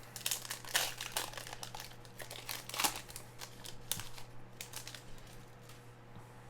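Foil trading-card pack wrapper crinkling as it is handled and opened, in irregular bursts of crackle that are loudest in the first three seconds and thin out toward the end.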